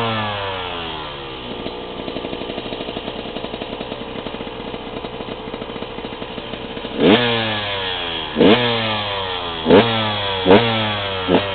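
2011 KTM 125 EXC two-stroke single-cylinder engine, warmed up, settling from a rev into a steady idle, then given about five quick throttle blips in the second half, the revs shooting up and dropping straight back each time.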